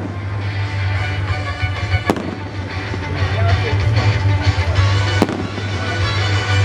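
Fireworks going off: a sharp bang about two seconds in and another about five seconds in, with lighter crackling between, over continuous music.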